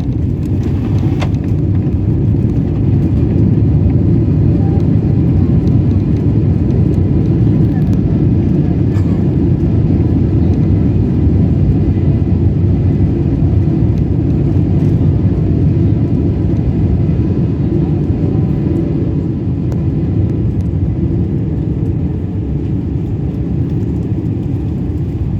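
Steady low rumble of a Boeing 777-300ER's engines and airflow heard inside the cabin, swelling slightly about three seconds in and easing off near the end.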